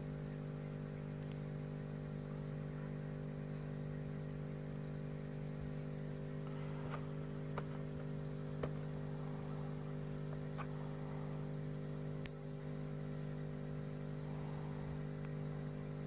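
Steady machine hum, even and unchanging, with a few light clicks about seven to nine seconds in as fingers fish a small metal pendant out of a plastic dish of plating solution.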